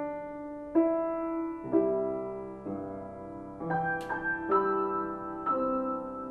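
Piano playing slow, sustained chords, a new chord struck about every second and left to ring.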